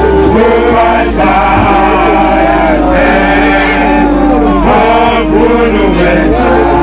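Music: a group of voices chanting and singing together over a steady low bass and a held note.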